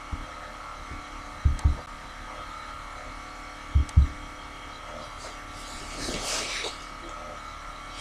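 Steady faint background hum with a thin electrical whine from the recording setup, broken by two pairs of soft low thumps, about a second and a half in and again near four seconds.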